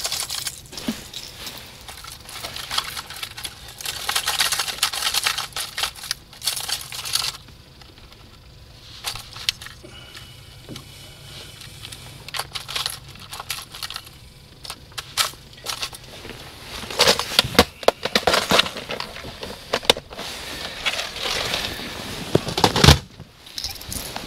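Hard plastic tackle clattering and clicking as someone rummages through a bass boat's console compartment for a replacement jerkbait. The clicks come in loose clusters, busiest early on and again near the end.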